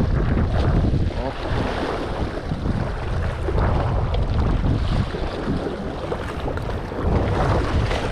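Seawater surging and splashing through a narrow channel in a sandstone rock platform, with wind buffeting the microphone.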